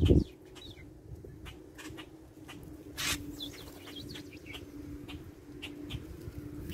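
Small birds chirping in scattered short calls, a few of them sliding in pitch, over a faint steady low hum. A gust of wind on the microphone cuts off right at the start, and a short burst of noise comes about three seconds in.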